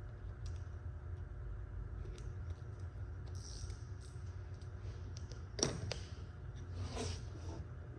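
Wood-grain vinyl wrap being handled and worked onto a diffuser: scattered rustles, rubs and small clicks, with a sharp click about five and a half seconds in, over a steady low hum.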